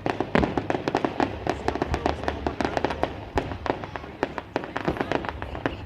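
Fireworks going off: a dense, irregular run of sharp cracks and bangs, several a second.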